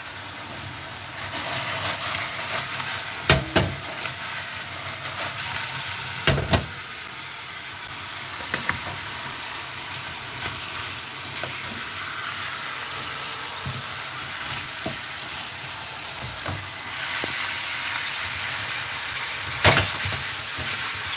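Pineapple chunks sizzling steadily in butter and sugar in a frying pan over high heat. The pieces are being stirred, with several sharp knocks against the pan.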